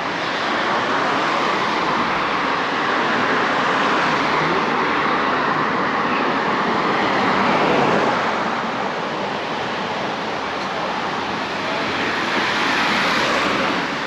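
Road noise from a car passing close by, its tyre noise swelling to a peak about eight seconds in, over a steady outdoor noise that swells again near the end.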